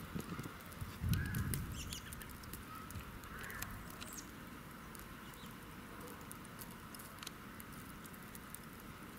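Quiet outdoor ambience in a snowstorm: a steady faint hiss with scattered light ticks, a dull thud about a second in, and a couple of faint short rising calls.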